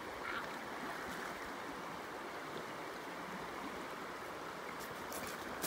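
Shallow river current flowing over a rocky bed, a steady wash of running water.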